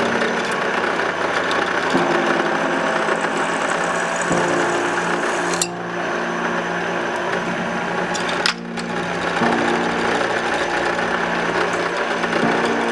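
A small electric power tool running steadily, with background music playing over it. The tool sound breaks off briefly twice, about six and eight and a half seconds in.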